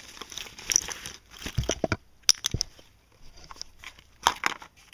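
Toy food and drink items being handled and packed into a doll's backpack: irregular rustling with several sharp clicks and light knocks.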